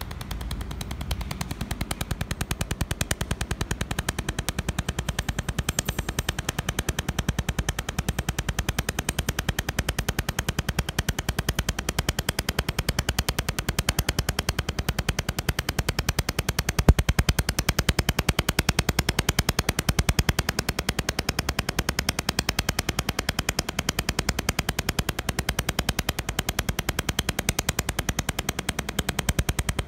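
Mould laser welding machine firing rapid, evenly spaced laser pulses along a seam in 1 mm stainless steel sheet, each pulse a sharp snap, over a low hum. The pulsing starts about a second in, with one louder snap midway.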